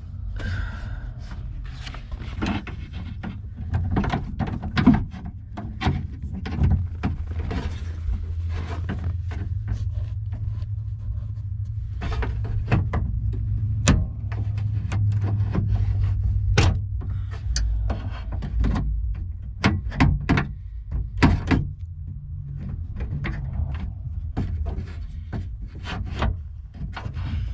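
Repeated clicks, knocks and rattles of a Ford F-250 Super Duty's rear half door being worked by hand, its handle and latch pulled without the door releasing: the latch cable has come off the latch. A low steady hum sits under the middle stretch.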